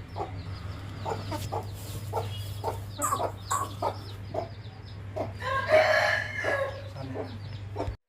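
Chickens clucking in short repeated calls, with one louder, drawn-out rooster crow a little past the middle; the sound cuts off abruptly near the end.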